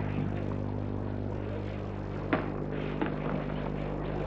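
Ringside sound of an old boxing broadcast: a steady electrical hum under a hall murmur, with a few sharp knocks from about two seconds in, the first the loudest.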